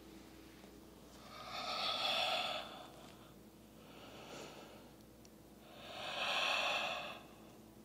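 A woman's long, audible breaths through the nose and throat as she flows through a yoga vinyasa into downward-facing dog: two loud breaths about four seconds apart, with a fainter one between them.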